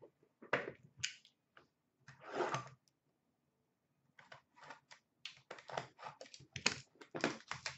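Quick crackling clicks of plastic wrapping being torn from a sealed box of hockey cards, with a few scattered clicks of handling at first and a dense run of crackles in the last few seconds.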